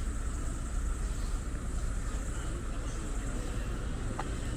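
Steady seaside wind and surf noise, with a deep rumble from wind buffeting the microphone and a faint click about four seconds in.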